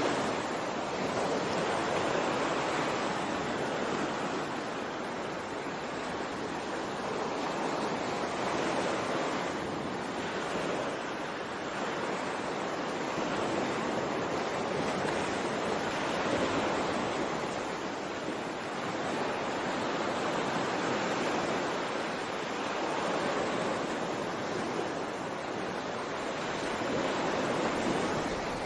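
Ocean waves washing in, a continuous rush of water that swells and eases every few seconds.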